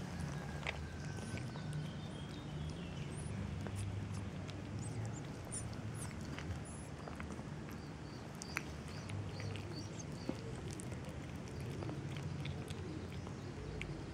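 Two cats chewing wet cat food from a plastic tub: many small, quick clicks of chewing over a steady low hum.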